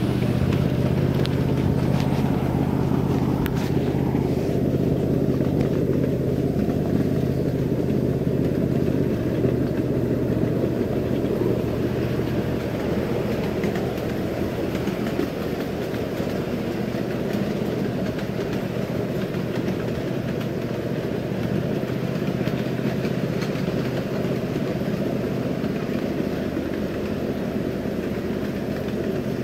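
Ride-on miniature railway train running steadily along its track: a continuous low drone from the locomotive and the wheels on the rails, easing slightly about halfway through.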